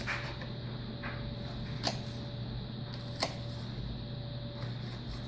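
Kitchen knife dicing a red onion on a cutting board: a few soft knocks of the blade, with two sharper ones about two and three seconds in, over a steady low hum.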